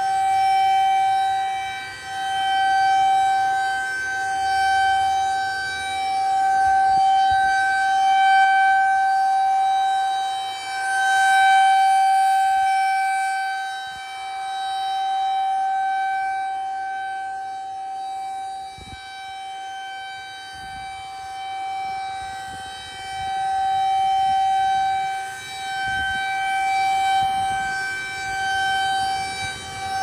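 Federal Signal 2001-SRNB rotating electromechanical warning siren sounding its steady alert tone. It holds one pitch throughout, swelling and fading in loudness as the single horn turns.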